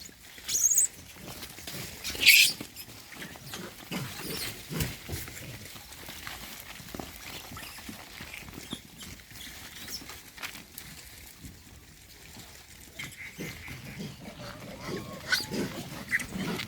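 A group of monkeys calling while they feed. There are two sharp shrieks in the first few seconds, the second the loudest, then scattered clicks and short calls that grow busier near the end.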